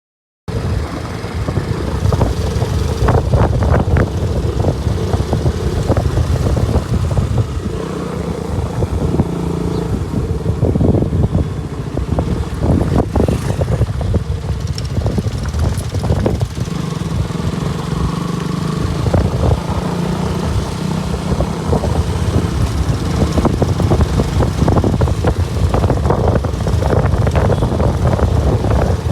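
KTM RC 200 motorcycle's single-cylinder engine running while riding, with wind rushing on the microphone and scattered knocks from the rough track. The sound starts abruptly about half a second in.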